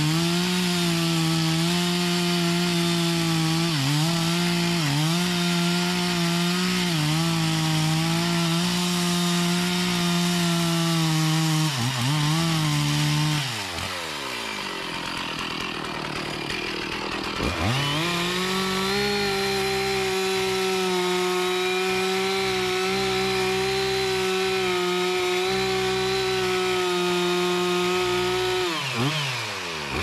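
Chainsaw running at full throttle cutting through teak, its pitch dipping briefly under load several times. About halfway through it drops back toward idle for a few seconds, then revs up sharply and cuts steadily again until the throttle is let off near the end.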